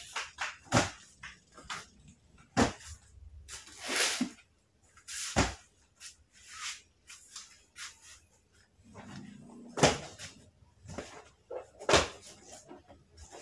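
Cardboard boxes of stock being handled and set down: about five sharp knocks a couple of seconds apart, with rustling and scraping of cardboard between them.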